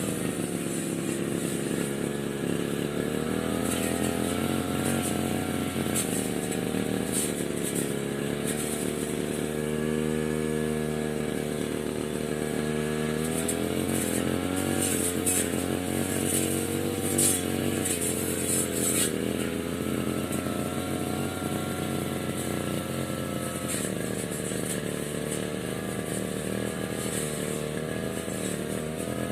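Petrol brush cutter (grass-cutting machine) engine running. Its speed drops off for several seconds around the middle and then rises again, with some brief high crackling a little later.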